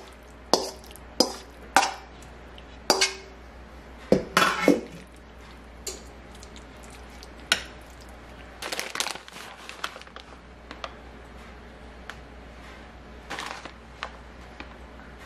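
A metal spoon clinking and scraping against a stainless steel mixing bowl and a glass baking dish as a casserole mixture is scooped out and spread. Sharp clinks come about every half second through the first five seconds, then scattered softer knocks and scrapes.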